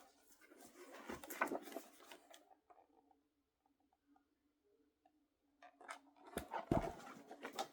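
Paper pages of a picture book being handled and turned: faint rustles and light clicks about a second in, then a few sharper clicks and a low knock near the end.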